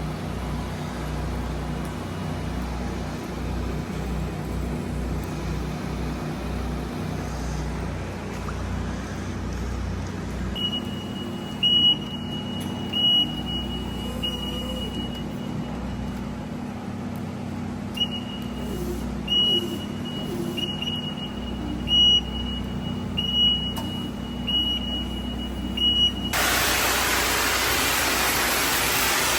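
Steady low machinery hum. From about a third of the way in, it is dotted with short, high beeps at uneven intervals. Near the end, a loud steady hiss starts suddenly.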